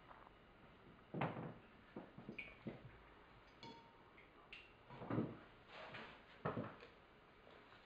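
Ink pots, a ceramic ink dish and a brush being handled and set down on a table: a series of separate light knocks and clunks, the loudest about a second in and again around five and six and a half seconds in, with a short ringing clink near four seconds.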